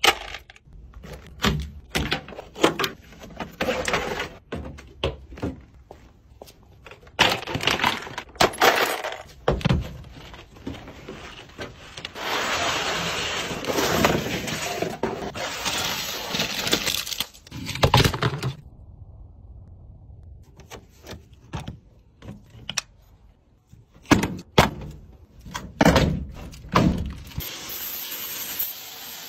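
Clanks, knocks and rattling of tools, bolts and metal panels as a van's interior is taken apart, with a pressure washer's spray starting to hiss steadily near the end.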